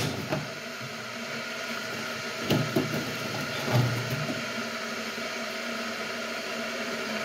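Electric kettle heating water, a steady rushing hum. A short knock sounds about two and a half seconds in.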